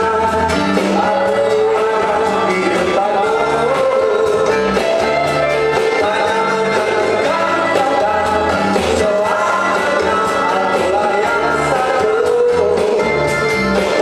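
A man singing into a handheld microphone over a backing music track, amplified through a PA system during a sound check.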